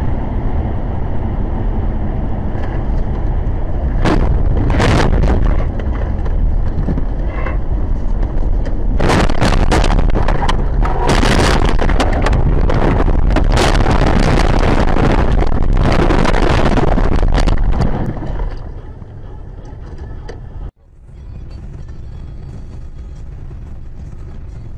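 A car on a snow-covered highway loses control and crashes: loud rumbling road and wind noise, with a few hard knocks about four seconds in and a long run of crashing, banging impacts from about nine to eighteen seconds as it goes off the road and tumbles. Near the end, steadier and quieter road noise of a car driving on a highway.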